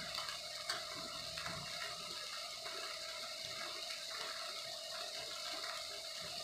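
Hamburgers sizzling in a skillet: a steady frying hiss, with a faint steady hum underneath and a couple of small clicks.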